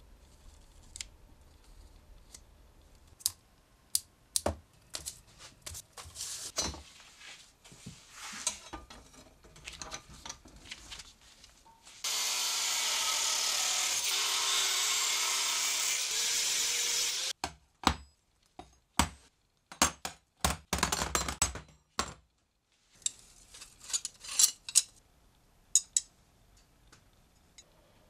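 A handheld angle grinder with a cut-off disc slicing through a steel flat bar held in a vice: a loud, steady grinding noise lasting about five seconds that starts and stops abruptly about twelve seconds in. Before and after the cut come scattered light taps and sharper knocks and clinks of hand work on a metal bench.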